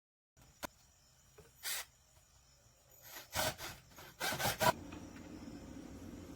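A single click, then a few short rubbing, scraping sounds in two clusters near the middle, followed by a faint steady hum.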